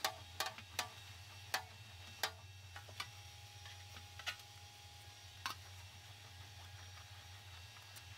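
A sheet-metal fender panel being rolled back and forth through an English wheel, correcting the panel's curve. Sharp, irregular clicks and ticks come from the panel and wheel, several in the first two seconds and then more sparsely, over a steady low hum.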